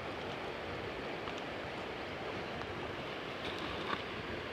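Steady flow of a shallow river over stones, with a faint click about four seconds in.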